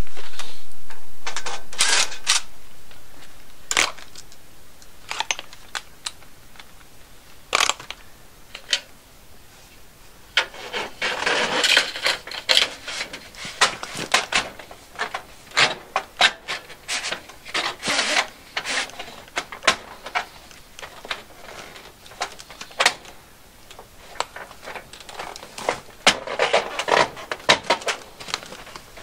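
Thin steel hem trim being worked by hand up over the edge of a steel wall panel: metal scraping on metal with clattering clicks, in irregular bursts that come thickest in the middle and again near the end.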